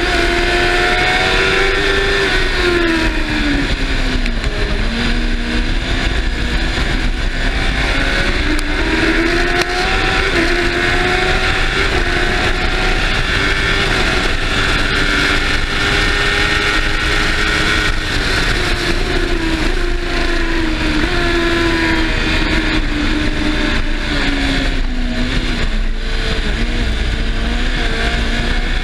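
Racing sidecar's engine heard onboard at high revs over a steady rushing hiss of wind at speed. The engine pitch drops twice, a few seconds in and again past the middle, as it slows for corners, then climbs back up through the gears.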